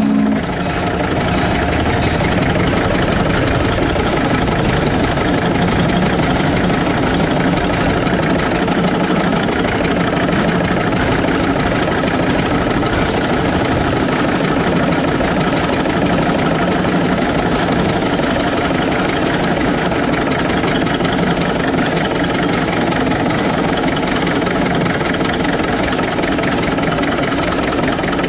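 Shay geared steam locomotive running along the track, heard up close beside its cylinders and gear drive: a loud, steady mechanical clatter and rumble that holds at the same level throughout.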